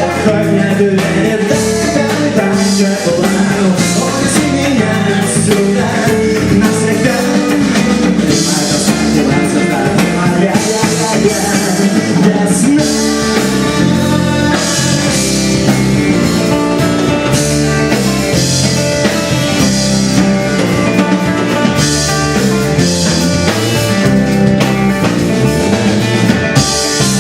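Rock song playing with drum kit and guitar, mostly an instrumental passage between sung verses, with some singing.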